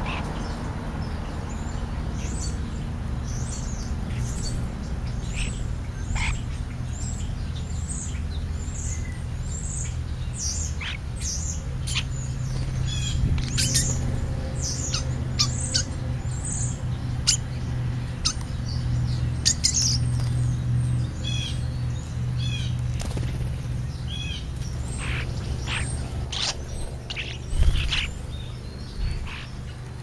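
Starlings calling: many short, high chirps and whistles from several birds, over a steady low hum. A brief thump comes near the end.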